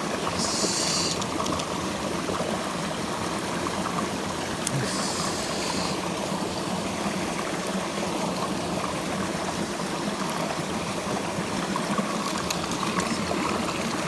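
Mountain stream water rushing steadily over rocks. Two short higher hissing sounds come in, one near the start and one about five seconds in.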